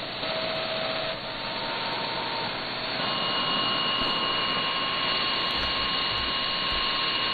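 Shortwave receiver static from an RTL-SDR dongle tuned around 12 MHz: a steady hiss with thin, steady whistle tones. About three seconds in, the tones change to new pitches as the receiver is retuned. No voice or station comes through, only empty band noise.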